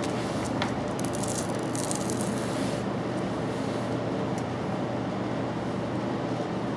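Steady room hum, with a rustle from about one to nearly three seconds in and a few light clicks as small screws and plastic mounting pieces are handled on a hard tabletop.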